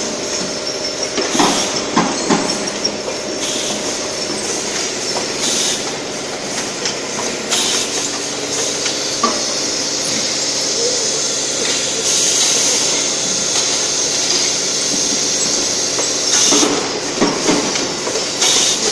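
Automatic paint-can filling and capping machine running: a steady mechanical clatter from the can conveyor and drives, with short bursts of air hiss from the pneumatic cylinders. Clusters of metallic knocks from tin cans and lids being pressed come about two seconds in and again near the end.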